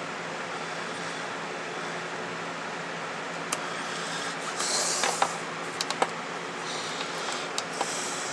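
Steady background hiss and hum, with a handful of sharp clicks from laptop keys being pressed: one at about three and a half seconds, a cluster around five to six seconds, and a couple near the end.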